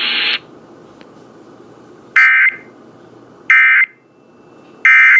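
Emergency Alert System end-of-message signal: three short, identical bursts of SAME digital data tones, evenly spaced about a second and a half apart, marking the close of the flash flood warning. The hissy broadcast audio cuts off just before the first burst.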